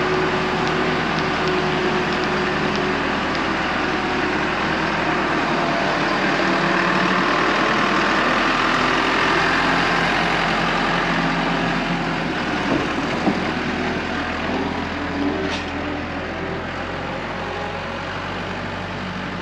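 Tractor engine running steadily under load while pulling a hay baler, with a constant din of machinery.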